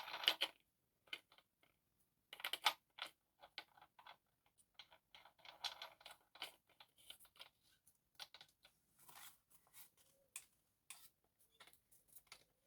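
Faint, scattered clicks and small metallic rattles of a cordless angle grinder's disc and locking nut being handled and turned by hand, with no motor running.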